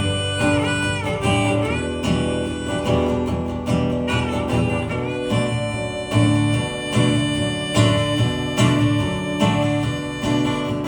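Country band playing an instrumental break: guitar strumming a steady rhythm under a lead melody whose notes bend up and down.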